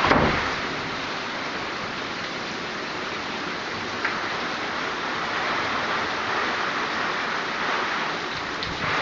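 Heavy tropical-storm rain pouring steadily, a dense even hiss, with water running off a veranda awning. A gust buffets the microphone with a low rumble right at the start.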